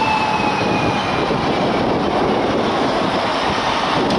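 Steady city street traffic noise at a busy intersection, with a slowly falling whine that fades out about a second in.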